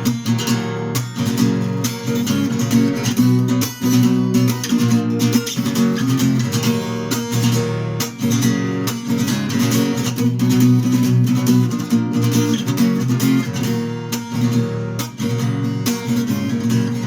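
Acoustic guitar music, strummed rhythmically with dense chords.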